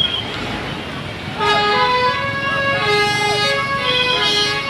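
Indonesian bus 'telolet' musical horn playing a tune of held notes that switch pitch, starting about a second and a half in over road noise.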